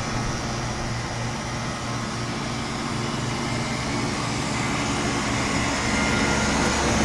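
Two outdoor heat-pump units, a Janitrol and an ICP commercial unit, running steadily in heat mode: a continuous compressor hum under the rush of the condenser fans.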